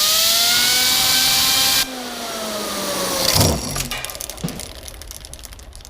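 Compressed air hissing hard onto a fidget spinner's exposed centre bearing while the spinner runs at speed with a high whine. The air cuts off suddenly about two seconds in and the whine slowly sinks. About three and a half seconds in, the pitch drops sharply with a loud burst as the overspun bearing blows out, followed by fading rattling clicks and a knock.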